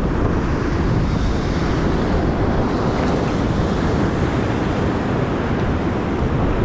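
Ocean surf breaking and washing over shore rocks in a steady loud rush, with wind buffeting the microphone.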